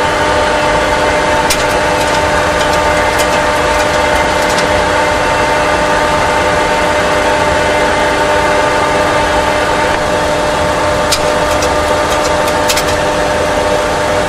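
Steady cockpit noise of a Boeing 737 Classic full-flight simulator: a rumble of simulated engine and airflow noise with a hum of several steady tones, and a few light clicks.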